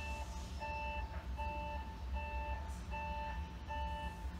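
Electronic departure warning beeps repeating about once every 0.8 s, each beep two pitches sounding together, over the low hum of a standing JR 719 series train.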